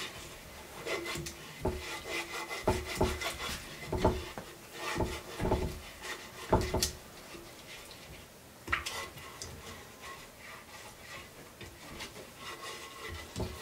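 Silicone pastry brush rubbing and scraping against the inside of black metal bread tins as they are greased, in repeated irregular strokes.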